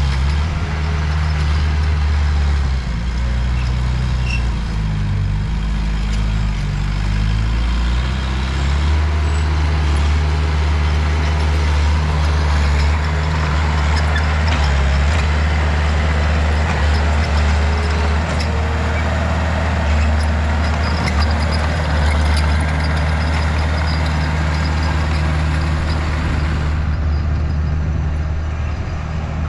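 Heavy diesel earthmoving machinery running under load. The engine pitch shifts up and down for the first several seconds, then holds steady.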